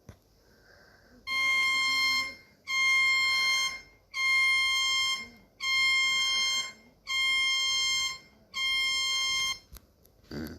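Emergency alert warning tone: six identical long beeps at one steady, buzzy pitch rich in overtones, each about a second long with short gaps between, starting about a second in.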